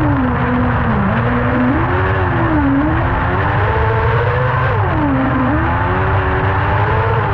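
Kart cross engine heard from inside the cockpit, racing on a dirt track: the revs dip sharply about a second in and again about five seconds in, climbing back each time as the throttle is reopened, over a constant low rumble.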